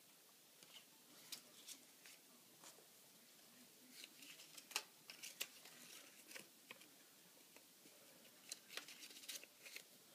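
Faint crinkling and rustling of small paper slips being handled and folded by hand, with scattered soft ticks.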